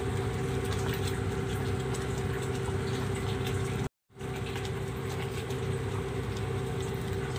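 Sago pudding bubbling in a steel pot over a gas burner: a steady hiss and simmer under a constant low hum. The sound cuts out completely for a moment about four seconds in.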